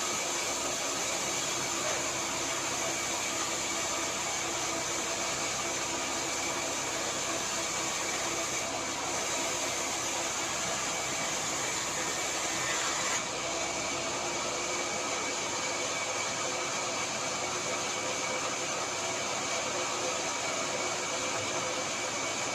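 Power saw running steadily, a constant machine hum with a hiss over it; the high hiss drops away about thirteen seconds in.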